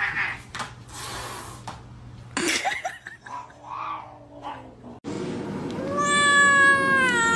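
A domestic cat gives one long, drawn-out meow starting about six seconds in, its pitch dipping slightly toward the end. Before it there are scattered knocks and scuffling sounds.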